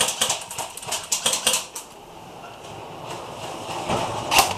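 Airsoft guns firing: a rapid, irregular clatter of sharp clicks for about the first two seconds, a lull, then another burst of clicks near the end.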